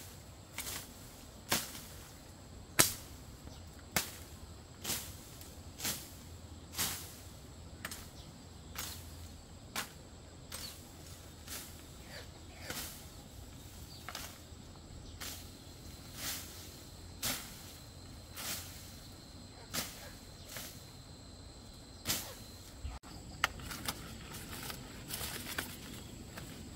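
A steady series of short, sharp swishing strokes, about one a second and evenly paced, as of something being worked over and over by hand.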